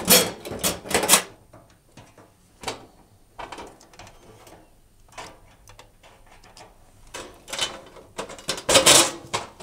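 Clicks, scrapes and clattering of a screwdriver and the sheet-steel base plate of a dishwasher being worked loose around its anti-flood sensor. There is a burst of clattering near the start and another near the end, with single clicks between them.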